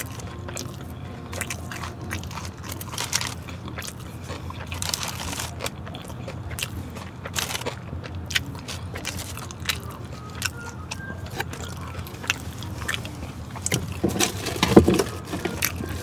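Close-up chewing and biting of crispy Korean fried chicken, with irregular crisp crunches over a steady low hum. A louder thump comes near the end.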